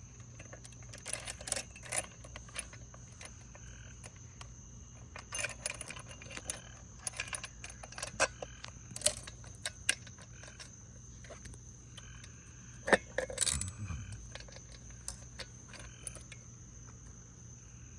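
Small metal chainsaw parts clinking and clattering as they are handled, in scattered bursts of sharp clicks, loudest about halfway through and again near the end.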